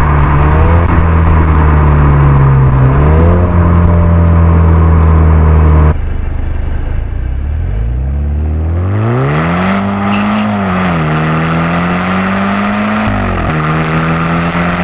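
BMW F10 520i's 2-litre turbocharged four-cylinder running through M Performance exhaust silencers under acceleration. For the first six seconds there is a deep drone with very strong bass that overloads the microphone. After an abrupt change, the engine's pitch climbs steeply, then dips twice at upshifts and climbs again.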